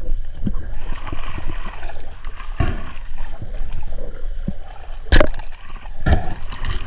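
Water sloshing and splashing over a steady low rumble, broken by three sharp knocks, the loudest a little past the middle.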